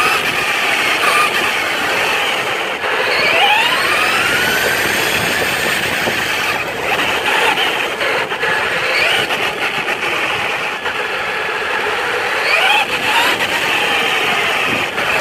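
Traxxas Rustler RC truck's electric motor and drivetrain whining, rising in pitch again and again as it accelerates, over a steady hiss of its tyres on wet pavement.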